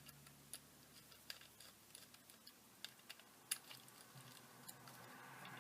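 Faint, irregular light clicks and taps of small screws and plastic shell parts being handled as a DJI Phantom 3 Pro drone is taken apart, with a soft rustle swelling near the end.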